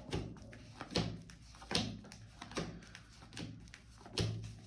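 Soft taps and thuds, about six at even spacing, as tarot cards are handled and laid down on a table.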